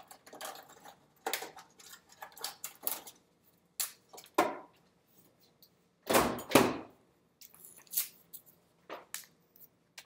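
Small items clinking and rattling on refrigerator shelves as someone rummages inside, then two heavy thumps about six seconds in as the fridge door is pushed shut.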